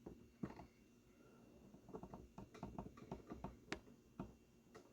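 Faint scattered clicks, taps and rustles of decorations being handled and set in place, with one sharper click a little before the end.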